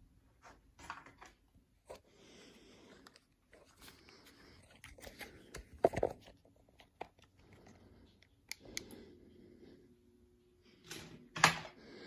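Three-blade ceiling fan starting up from rest, its motor hum setting in steadily about two-thirds of the way through as the blades come up to speed. Scattered clicks throughout, with two louder knocks, one about halfway and one near the end.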